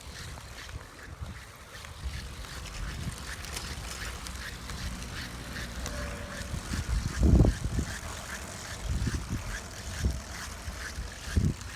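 Brompton folding bike being ridden, with a regular ticking rattle of roughly three ticks a second: the abnormal noise from its Tunnus fitting. Wind rumbles on the microphone, with a few heavier bumps.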